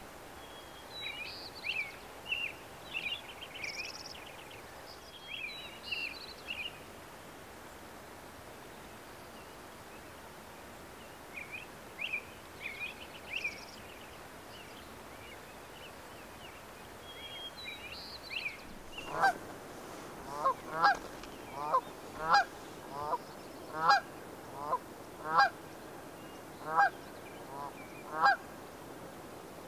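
Canada geese honking in a long run of repeated honks, one or two a second, starting about two-thirds of the way in. Before that, a small songbird sings short high phrases now and then.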